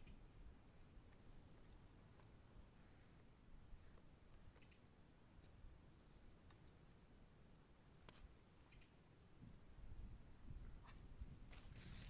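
Insects shrilling steadily at a high pitch in the field, with a short triple chirp repeating about every four seconds and brief falling chirps in between. A few soft clicks and rustles come near the end.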